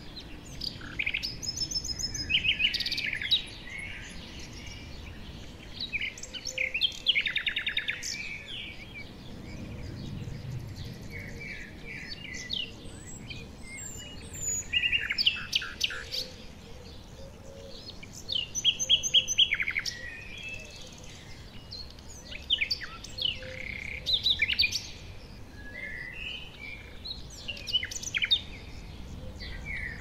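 Several wild birds singing and calling, with a mix of short chirps and quick trills, over a faint steady background hiss.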